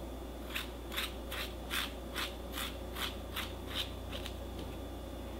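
A spoon scraping the seeds and pith out of a halved bitter melon in about ten quick strokes, two or three a second, stopping a little past four seconds in.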